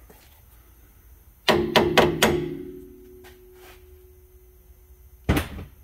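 Metal clanking against metal in a repair shop: a quick run of four or five knocks about a second and a half in, leaving a ringing tone that fades away, then a single knock near the end.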